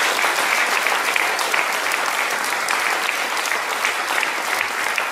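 Audience applauding: many people clapping at once, loudest in the first second and easing a little after.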